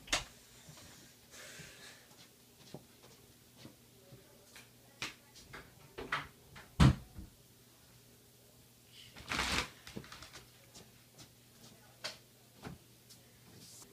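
Scattered knocks, clicks and rustling of someone moving about a small room, with one loud thump about seven seconds in and a second of rustling a little later.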